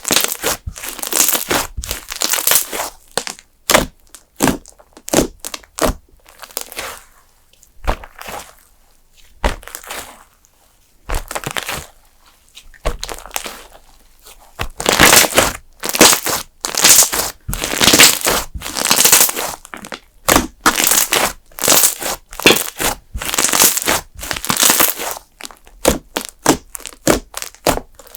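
Hands squeezing and pressing a thick custard-base slime, making irregular crackling, crunchy pops in quick clusters. The crackles thin out and quieten for several seconds in the middle.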